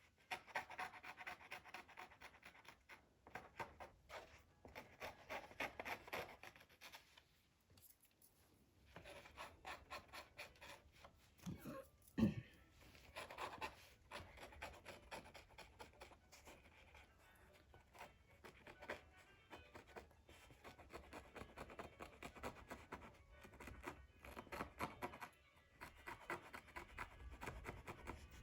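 Faint scratching and rubbing from hand work on a Torah scroll during tab repair, in runs of quick strokes broken by short pauses. There is one short, louder sound about twelve seconds in.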